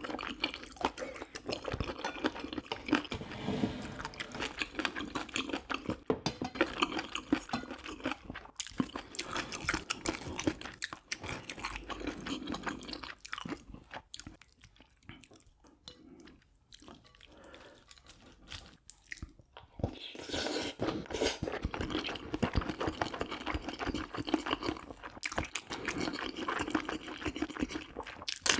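A person chewing and crunching food close to the microphone, with dense crackly clicks that ease off for several seconds in the middle before the chewing picks up again.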